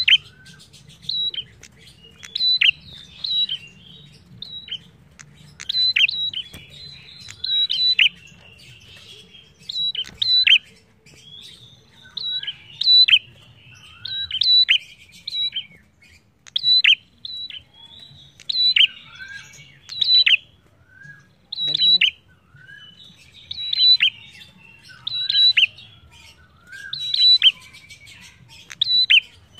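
Caged ashy tailorbird (prenjak) singing loudly: sharp, high notes, each dropping steeply in pitch, repeated about once a second, with softer chattering between them.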